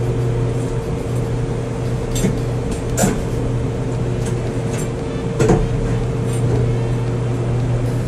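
Steady low machine hum, with a few short, sharp metal clinks about two, three and five and a half seconds in from tools working on the fan's nuts inside the CNC machine.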